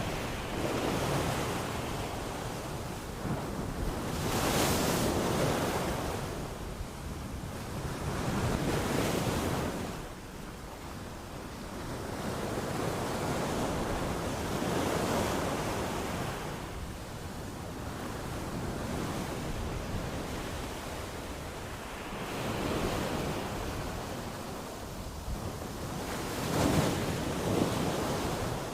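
Ocean surf: waves breaking and washing in, a continuous rush that swells and fades every few seconds.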